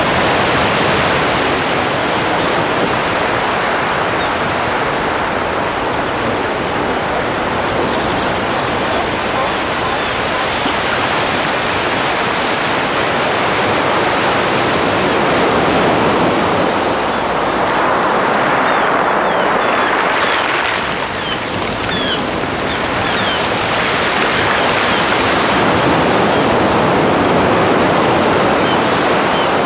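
Sea surf: a steady rush of waves that swells and eases every few seconds, with a few faint, short high calls about two-thirds of the way through.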